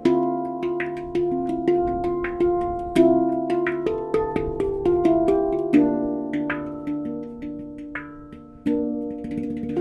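Handpan played with the hands: a melody of struck notes, each ringing on and overlapping the next. The notes die away softly a little before the end, then a strong strike starts a new phrase.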